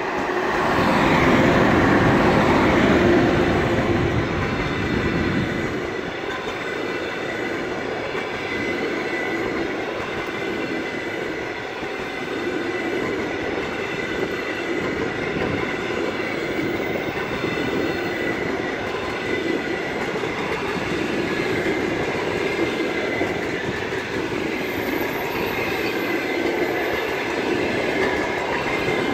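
A ChS7 twin-section electric locomotive passes close by at speed, loudest in the first few seconds. A long train of passenger coaches follows, rolling past with a steady rush of wheels on the rails and a thin, steady high tone over it.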